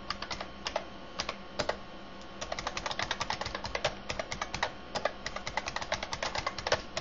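Computer keyboard typing: quick, irregular key clicks in runs as a user name and password are entered, with a short pause about two seconds in.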